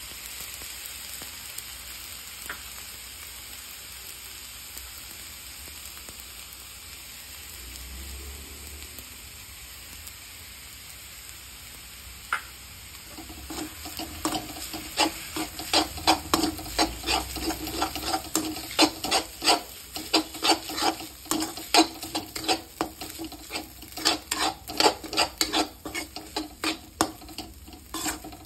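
Noodles and vegetables sizzling in a metal wok as soy sauce goes in. About 13 seconds in, a perforated metal spoon starts tossing them, clanking and scraping against the wok two or three times a second, and the pan rings with each stroke.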